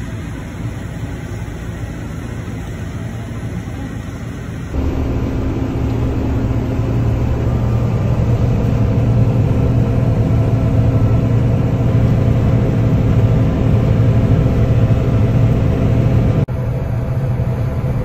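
Large diesel harvest machinery running steadily with a low hum. The sound changes abruptly about five seconds in, getting louder and deeper, and again near the end.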